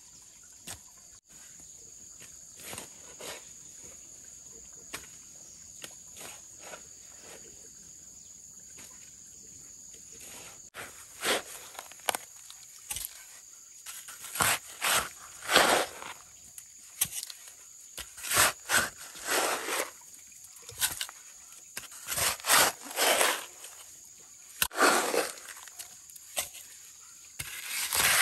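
A metal hoe blade striking and scraping into damp soil: soft, scattered strokes at first, then from about eleven seconds in, a run of loud chops and scrapes coming one or two a second. A steady high insect buzz sits underneath.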